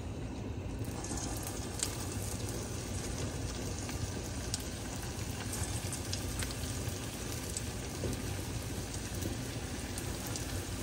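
Medu vada deep-frying in hot oil: a steady sizzle with scattered small pops and crackles, growing fuller about a second in.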